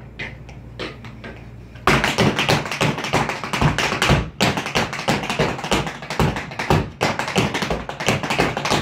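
Tap shoes striking a wooden stage in a tap-dance solo: a few scattered taps at first, then from about two seconds in a dense, rapid run of taps.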